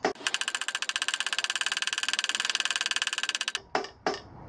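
Rubber mallet tapping a PVC pipe to drive a tapered-roller headset bearing cup into a motorbike frame: a sharp tap at the start and two more near the end. In between, a fast, even, high buzzing rattle of about a dozen pulses a second runs for about three seconds and cuts off suddenly.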